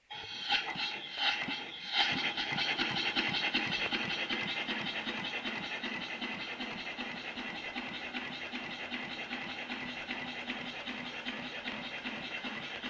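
Small vertical steam launch engine running on compressed air. It starts as the valve is opened with a few uneven puffs, then about two seconds in settles into a steady, rapid beat of exhaust puffs.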